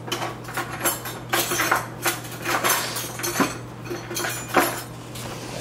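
Breakfast dishes and cutlery being set down and handled on a table: irregular clinks and knocks of plates, a cup and a spoon, over a steady low hum.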